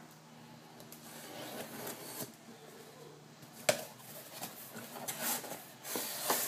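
Craft knife slicing through packing tape along a cardboard box seam, a scraping cut. About halfway there is a sharp snap as the flaps are pulled apart, then the cardboard flaps rustle and scrape as they are pushed open.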